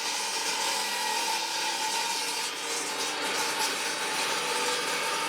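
Cheap table saw running with a steady whine, its blade cutting wood: a test cut through a board on a crosscut sled.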